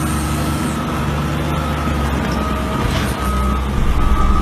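Volvo wheel loader's diesel engine running steadily, with a high whine held over it.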